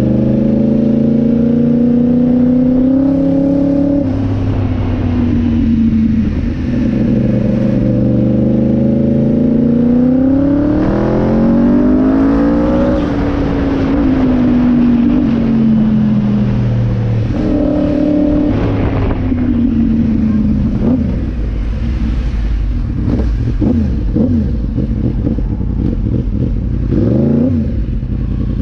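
A quad bike's Yamaha MT-10/R1 1000cc inline-four engine running on the road. Its pitch climbs as it accelerates through the gears, then falls away as it slows, with a steady rush of wind and road noise. Near the end there is one quick rev up and down.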